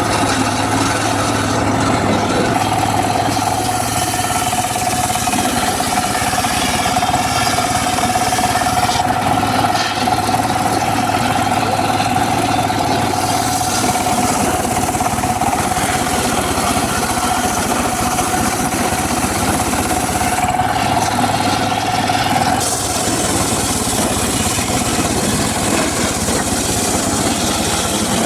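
Homemade circular saw rig running continuously. A steady mid-pitched whine holds over the machine noise from about two seconds in until about twenty-two seconds in.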